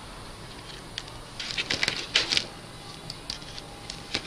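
Handling noise: scattered light clicks and short scuffs, busiest between about one and a half and two and a half seconds in.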